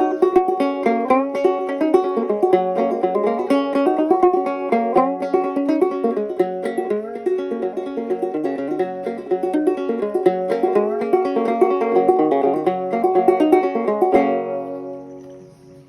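Cherry and butternut fretless banjo played solo in a quick run of plucked notes. Near the end, a final strummed chord rings and fades away.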